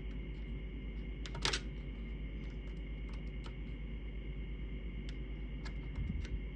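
Small scattered metal clicks and ticks from a screwdriver driving a tiny screw into a Corona Standard portable typewriter's drawband fitting, with one louder click about a second and a half in, over a steady low hum.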